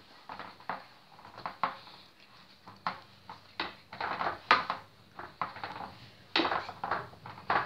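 Pizza dough being pressed and spread by hand in round pizza pans, with irregular knocks and clatters of the pans against the table. The knocks are loudest about four and a half seconds in and again near the end.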